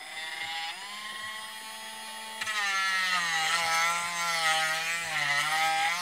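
Handheld cordless rotary tool with a sanding drum running as a steady high-pitched whine. About two and a half seconds in it gets louder and its pitch dips and wavers as the spinning drum bears against a part clamped in a vise.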